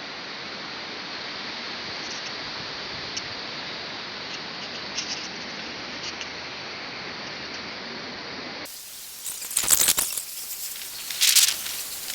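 Storm wind: a steady rushing hiss, then, after a sudden change about nine seconds in, louder irregular gusts of wind noise.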